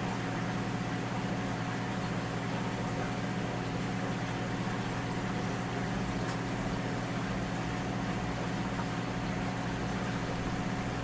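Aquarium pump humming steadily over an even hiss, with no change.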